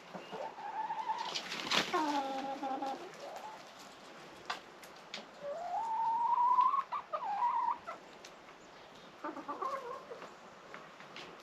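Chickens calling. A rooster crows: one call about a second in with a falling end, a long rising crow around the middle that is the loudest sound, and a shorter call near the end, with a few sharp clicks in between.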